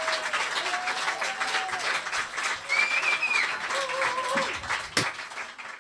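Audience applauding, with a few voices calling out over the clapping. One sharp clap stands out about five seconds in, and the sound cuts off suddenly at the end.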